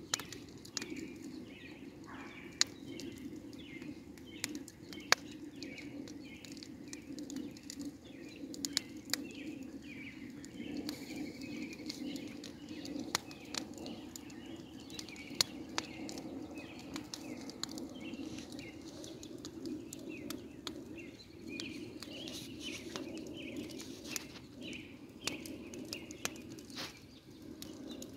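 Outdoor spring ambience: a steady low rushing sound under a run of short high chirps that repeat a few times a second, with scattered sharp crackles and clicks throughout.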